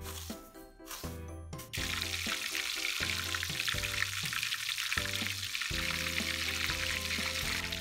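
Breaded tonkatsu pork cutlets deep-frying in hot vegetable oil: a dense, steady sizzle that comes in suddenly about two seconds in. Before it come short rustles of panko breadcrumbs being pressed onto the pork by hand.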